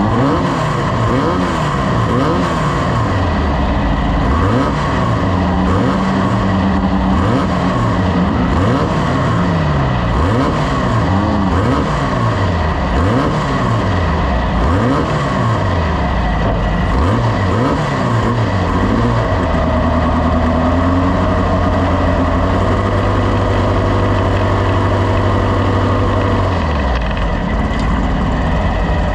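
Off-road race vehicle engine revving up and down over and over, roughly once a second, then holding a steadier pitch for the last several seconds.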